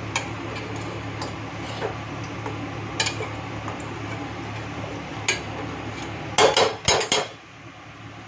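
Metal spoon stirring thick chicken masala in a steel handi, with occasional scrapes and clinks against the pot. About six and a half seconds in, the spoon clanks loudly against the pot several times in quick succession.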